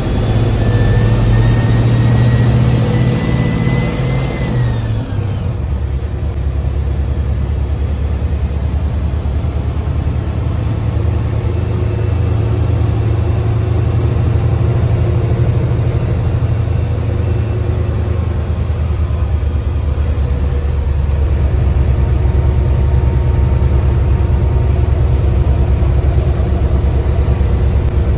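Mercedes-Benz bus diesel engine pulling under load, its turbocharger whistle rising for the first four seconds or so and then falling away quickly, after which the engine runs on steadily.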